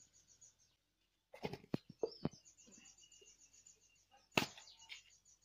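Sharp knocks of utensils being handled: four close together around one and a half to two seconds in, and a louder single one near the end. Behind them a bird chirps high and fast, several times a second.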